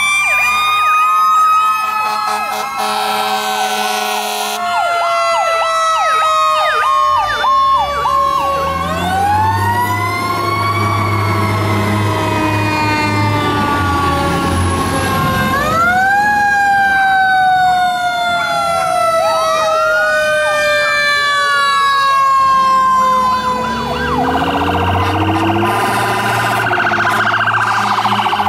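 Several fire truck sirens sounding at once, overlapping wails, a fast yelp and long slowly falling tones, with blasts of a horn a few seconds in and again near the end. Diesel engines of the passing trucks rumble underneath at times.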